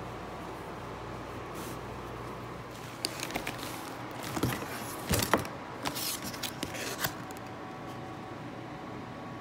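Items being handled in a cardboard box: from about three seconds in, a few seconds of sharp knocks, scuffs and rustles as things are moved against the cardboard, over a steady background hum.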